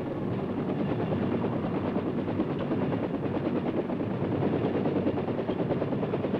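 Bell UH-1 Huey helicopter lifting off and hovering, its rotor beating in a rapid, steady chop over the turbine's running noise.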